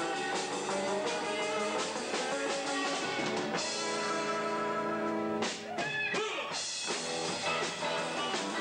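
Live rock band playing, with electric guitars and drums. About halfway through, the band holds a long chord, then drops back briefly to a few guitar notes sliding in pitch before the full band comes back in.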